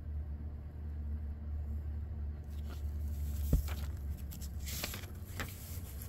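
Paper page of an old book being turned by hand: a dry rustle with a few crisp flicks and a soft tap about halfway through.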